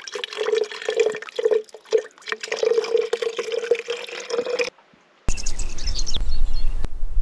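Spring water trickling and splashing into a plastic bottle, with a steady hollow ringing note from the bottle as it fills. The pouring stops about four and a half seconds in, and after a brief silence a low rumble takes over.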